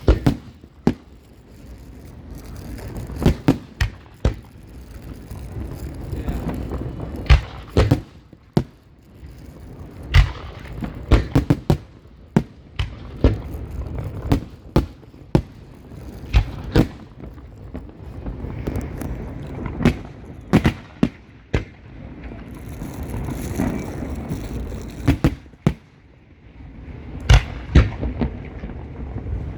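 Fireworks going off: many sharp bangs at irregular intervals over a low rumble, with stretches of crackling hiss from the shells.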